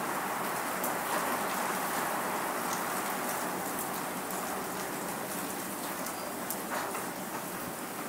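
Rain falling steadily: a dense, even hiss with scattered sharper drop ticks, easing slightly near the end.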